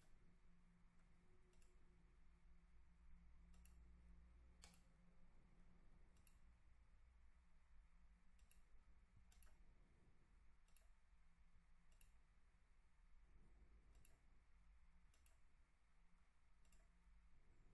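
Near silence with faint computer mouse clicks, about one a second, over a low steady hum.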